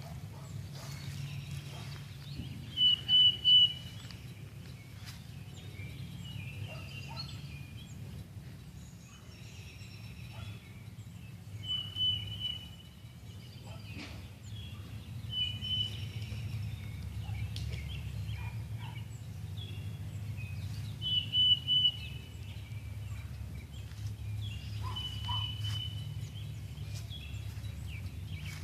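A bird's short, high calls, repeated about five times a few seconds apart, over a steady low rumble.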